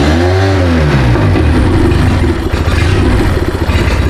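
A 2009 Mercury 9.9 hp four-stroke outboard (two-cylinder) running briefly. It revs up and back down in the first second, then runs on steadily and a little unevenly. It is running on a squirt of starting fluid while its rebuilt mechanical fuel pump is tested by pumping fuel into a bag instead of the carburettor.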